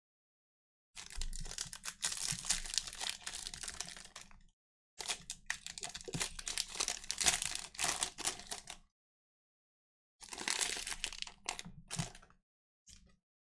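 Plastic wrappers of trading-card packs crinkling and tearing as the packs are opened, in three bursts of a few seconds each, with a short crackle near the end.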